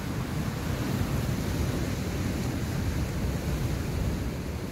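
Sea surf breaking and washing over shoreline rocks: a steady rush of noise, with a low rumble of wind on the microphone.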